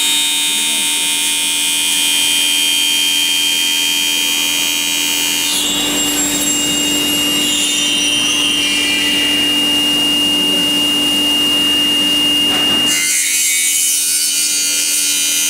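High-speed spindle of a CNC aluminium profile machining centre running with a steady high-pitched whine. From about five seconds in, for some seven seconds, its disc saw tool cuts into the aluminium profile with a rougher, noisier sound over the whine, which then goes back to the whine alone.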